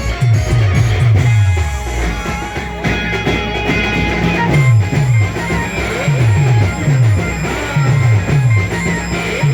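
Band music: a plucked-string melody over drums, with quick runs of low drum hits that each drop in pitch.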